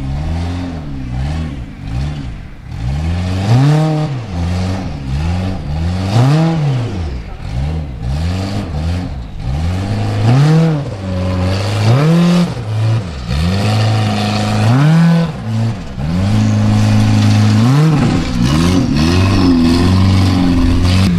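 Formula Offroad race buggy's engine revved up and down again and again, about once a second, as the car claws its way up a steep loose-dirt slope. In the second half the revs are held higher for longer stretches and it gets louder.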